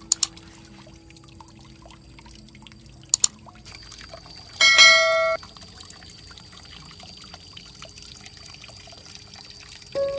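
A bell-like chime rings once, loudly, about halfway through and cuts off suddenly. It sits over a faint held tone, with two pairs of sharp clicks before it.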